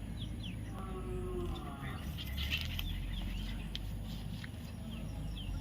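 A baby parrot making short chirps and squeaks. One longer call comes about a second in, and brief high chirps about two seconds in, over a low rumble and some rustling.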